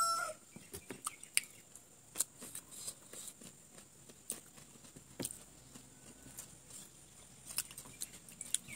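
Eating sounds: scattered small clicks and smacks of chewing and of metal forks picking at noodles on a banana-leaf plate. A rooster's crow cuts off just at the start.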